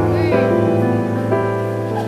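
Background music: gentle piano-led instrumental with sustained chords and a steady bass.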